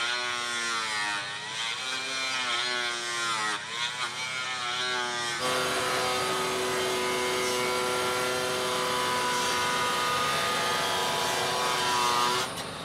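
Power tool motor running, its pitch rising and falling for about five seconds. About five seconds in it changes suddenly to a steady whine, which stops shortly before the end.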